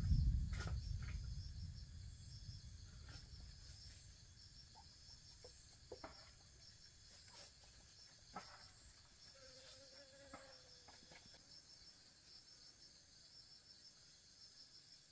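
Insects chirping in a steady, high, pulsing chorus. A low rumble fades away over the first few seconds, and a few light taps and clicks are scattered through.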